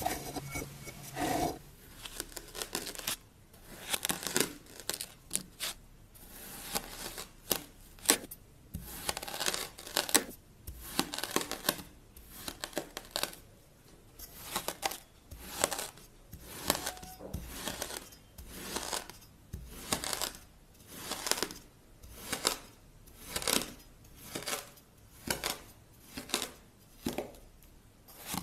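Knife blade slicing through packed kinetic sand, a crunchy scrape with each cut, the cuts coming about once a second.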